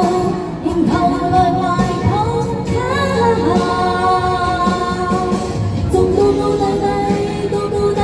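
A woman singing a pop ballad into a microphone, holding long notes over an amplified backing track.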